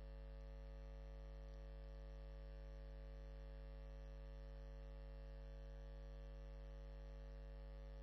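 Steady low electrical mains hum with many overtones, unchanging, and no other sound heard.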